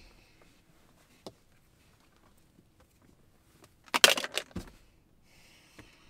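Small handling sounds inside a quiet car cabin: a single click about a second in, a short cluster of clicks and rattles about four seconds in as a hand works near the steering column, then a soft breath-like hiss near the end.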